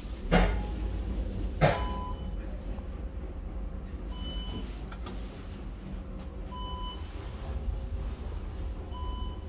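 Elevator car sounds: two sharp clicks in the first two seconds, then a short electronic beep repeating about every two and a half seconds, four times, over a steady low hum.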